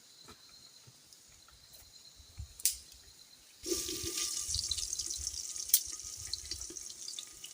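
Food going into hot oil in a cooking pan, sizzling and crackling. The sizzle starts suddenly a little past halfway, after a quiet stretch with a single click.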